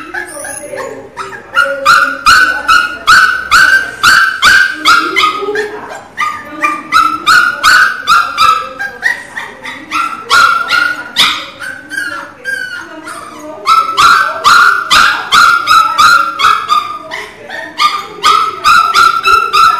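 Pinscher puppy crying loudly: rapid high-pitched yelps, about three a second, in long runs broken by short pauses.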